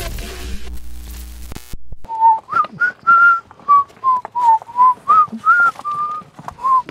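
A person whistling a tune, about a dozen short notes rising and falling, starting about two seconds in, with faint clicks and rustles beneath. Before that, the tail of electronic intro music fades out.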